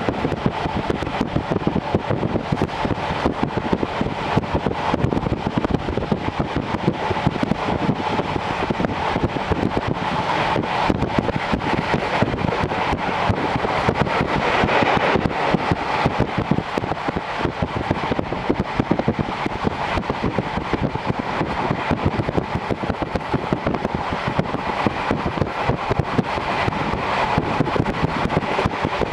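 Series 711 electric train running at speed, heard from inside the car through an open window: a steady rumble of wheels on rail mixed with wind noise.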